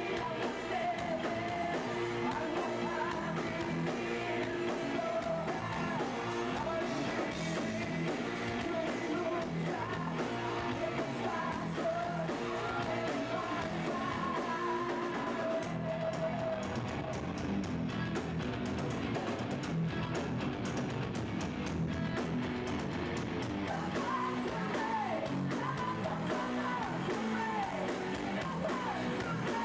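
Live rock band playing: a male singer singing into a microphone over electric guitar and drums, at a steady level throughout.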